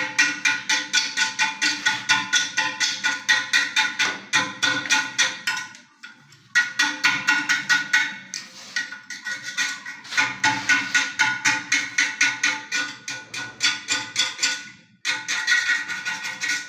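Background music with a fast, steady percussive beat of about five or six hits a second, dropping out briefly twice.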